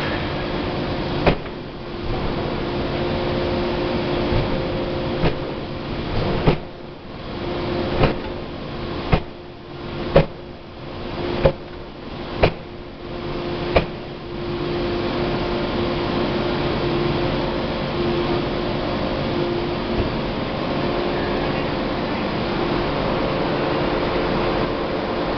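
Air-driven closed-die forging hammer striking a red-hot workpiece: about nine heavy blows, unevenly spaced and about a second apart in the middle, falling between about a second in and fourteen seconds in. A steady machinery hum with a held tone runs under the blows and carries on after them.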